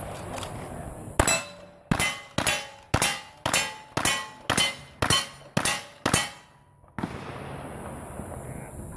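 Ten gunshots in quick succession, about half a second apart, each followed by a brief metallic ring of a hit steel target: a cowboy action shooting stage being fired.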